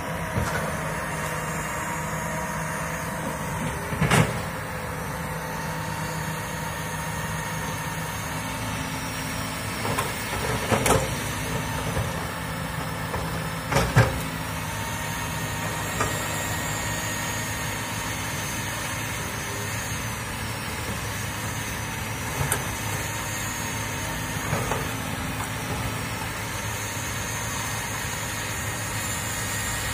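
Komatsu hydraulic excavator's diesel engine running steadily as the machine works. A handful of sharp knocks stand out over it, the loudest three in the first half.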